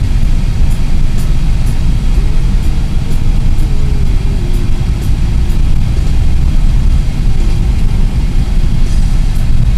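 Steady low rumble of a car driving, heard from inside the cabin, with faint music underneath.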